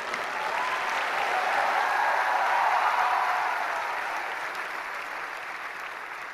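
A large audience applauding. The clapping swells to its loudest about halfway through, then slowly dies away.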